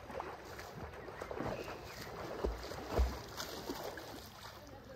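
Lake water lapping and sloshing against a floating dock, with small splashes from a swimmer. Two low thumps come about half a second apart midway through.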